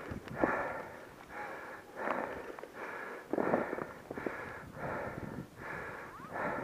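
A person breathing hard and fast from exertion, one heavy breath about every three-quarters of a second.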